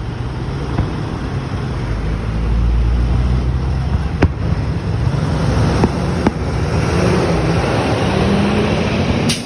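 Steady motor-vehicle engine noise with a low hum that rises in pitch near the end, and a few sharp pops or clicks.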